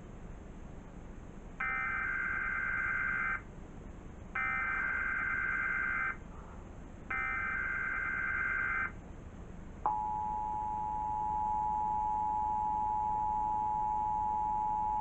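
Emergency Alert System test signal: three short bursts of SAME header data, a harsh digital warble each under two seconds long with short gaps between. About ten seconds in, the steady two-tone EAS attention signal begins and holds.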